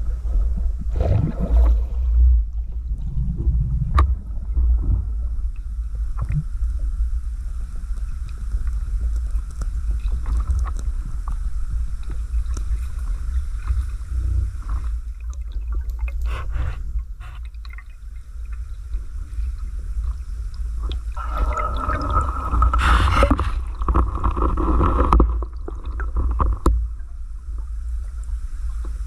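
Underwater sound picked up by a submerged camera: a steady low rumble of water with scattered clicks and ticks. There is a louder spell of bubbling and gurgling from about 21 to 26 seconds in.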